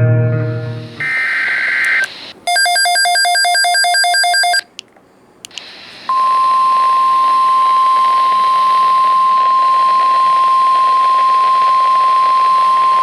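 Music cuts off, then a brief electronic data burst and a rapid run of beeps. From about halfway, the NOAA Weather Radio warning alarm tone holds as one steady, unwavering pitch over radio hiss, signalling that an emergency alert message follows.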